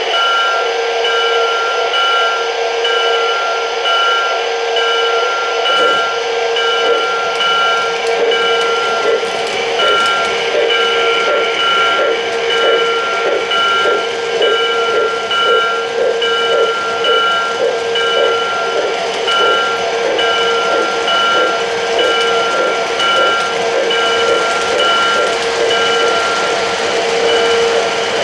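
O-gauge model freight train running along three-rail track: a steady mechanical hum with a pulsing on-off pattern, and from about six seconds in a regular clicking of the wheels over the rail joints.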